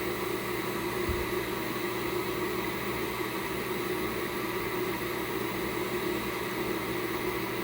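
Steady mechanical hum with an even hiss, as of a kitchen appliance or fan running, unchanging throughout.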